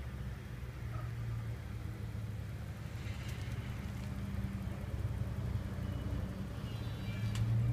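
A steady low mechanical hum with a few steady tones, like a running motor, with a faint higher whine a few seconds in and a short click near the end.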